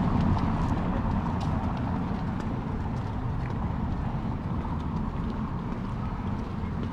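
Outdoor town-street ambience: a steady low rumble that eases slightly, with a few faint clicks like footsteps on cobblestone paving.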